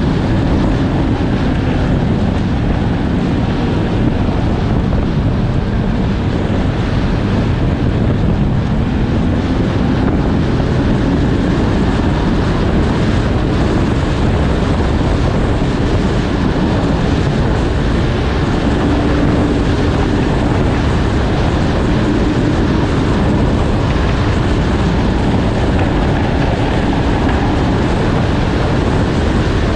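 Snowmobile engine running while riding, its pitch rising and falling a little with the throttle, with wind rumbling on the microphone.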